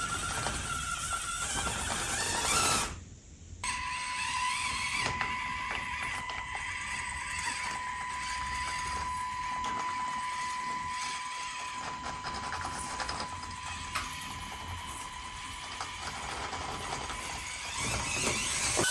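A 1/24-scale micro RC crawler's small electric motor and plastic-geared drivetrain working at crawling speed, with a steady high whine and a patter of small clicks and ticks from the gears and the tyres on the obstacles. There is a brief drop about three seconds in.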